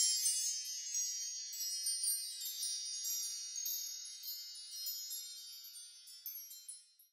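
Metal chimes tinkling: a shimmering cluster of high ringing tones that starts loud, slowly dies away with a few fresh jingles along the way, and stops about seven seconds in.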